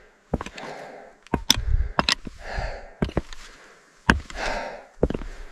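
A hiker's hard breathing while climbing, a breath about every two seconds, with footsteps knocking and scuffing on the path.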